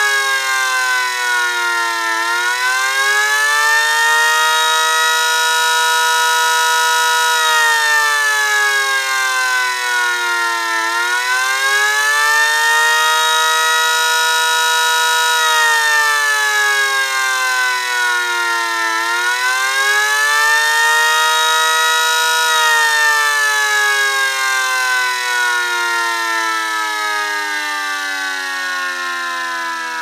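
Homemade 9/12-port electric siren with vanes in its rotor, sounding an attack signal: a loud chord-like wail that rises, holds briefly at the top and falls, about three cycles roughly eight seconds apart, ending in a long slow fall.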